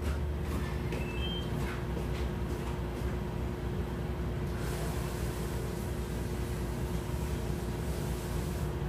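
Steady low hum of room noise with a faint steady tone, a few faint knocks in the first two seconds, and a soft hiss from about halfway until just before the end.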